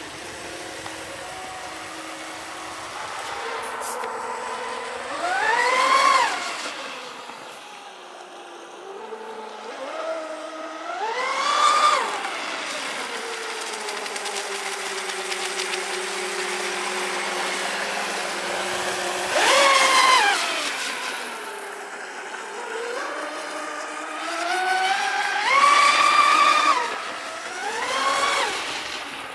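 Radio-controlled speedboat's motor running at high speed. Its pitch climbs sharply and falls away again about five times as the boat accelerates, turns and speeds past.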